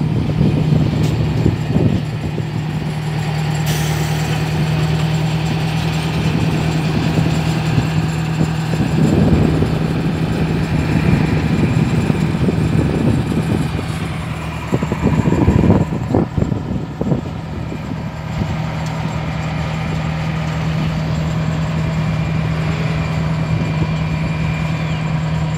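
Diesel shunting locomotive's engine running with a steady low drone, swelling louder briefly twice.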